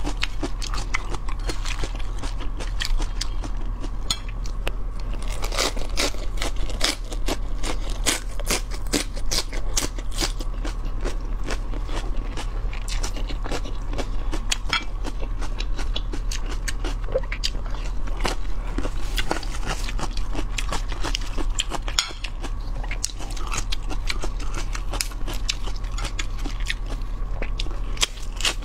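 Person chewing and crunching food close to the microphone, a dense, irregular run of crisp crunches and bites, over a steady low hum.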